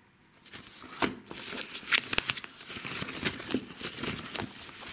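Thin tissue-paper wrapping crinkling and rustling as it is pulled off a Blu-ray case, in quick irregular crackles that start about a second in.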